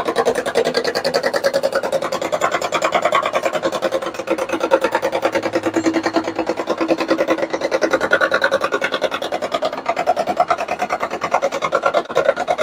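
Improvised engine sound of an RC model steamer: a rapid, even chuffing rhythm that cuts off suddenly near the end.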